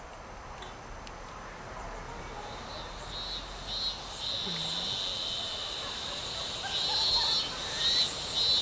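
A high-pitched chirping insect trill, in short pulses from about three seconds in, an unbroken stretch in the middle, then pulses again near the end.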